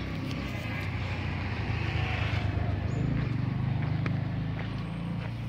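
A motor vehicle's engine running steadily with a low, even hum, with a few faint light clicks over it.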